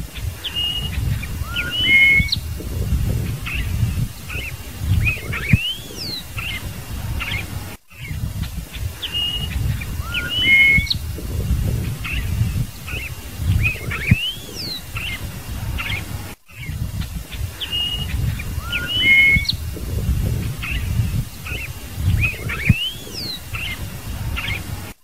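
Scarlet-headed blackbird singing: clear whistled notes and slurred upward and downward glides, over a low rumble. The same recorded phrase repeats about every eight or nine seconds, with a brief dropout between repeats.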